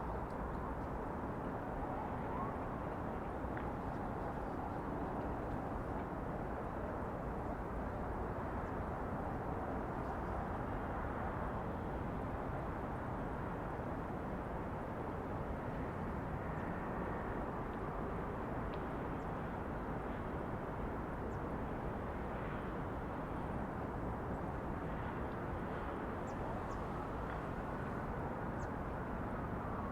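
Steady hum of distant city traffic, with a faint passing engine whose pitch slides near the start and again near the end, and a few short, faint high chirps in the second half.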